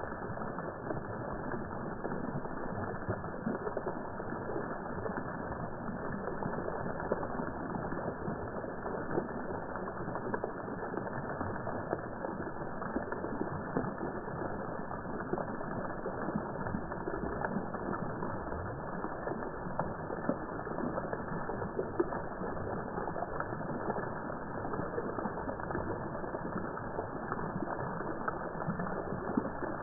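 Fountain water spraying and splashing into its basin, slowed down with the slow-motion footage so it comes out as a low, muffled, crackling rush.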